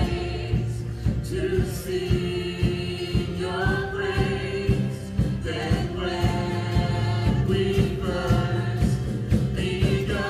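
Live worship band: several vocalists singing long held notes together over a drum kit and electric and acoustic guitars, with a steady drum beat.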